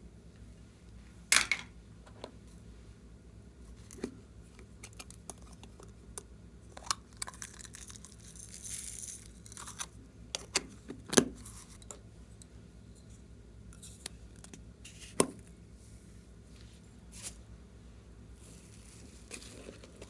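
Clear slime being handled and mixed: scattered sticky pops, snaps and crackles at irregular moments, the loudest about a second in, about eleven seconds in and about fifteen seconds in, with a soft rustle around eight to nine seconds in.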